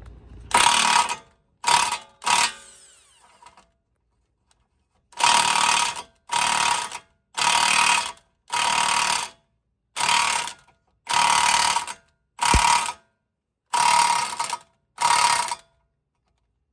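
Cordless power tool run in short trigger bursts, loosening the castle nut on a tie rod end: three quick blips, then after a pause about nine bursts of roughly a second each, each with a steady motor whine.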